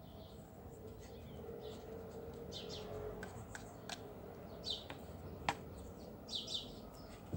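Birds chirping in short bursts, three or four times, over a few sharp light clicks and taps.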